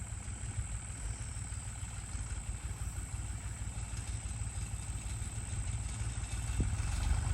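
Farm tractor engine running as it works the ground turning up a potato row, a steady low rumble that grows louder near the end as the tractor comes closer.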